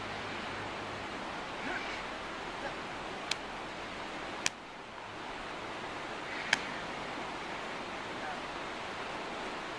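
Steady rushing of a river in a rocky gorge, with three sharp clicks a few seconds in.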